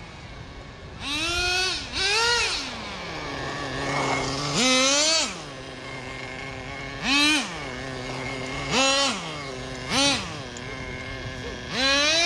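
Traxxas Jato 3.3 nitro RC car's small two-stroke glow engine idling, then blipped in short revs every second or two, the pitch sweeping up sharply and dropping back each time, with one longer rev about five seconds in.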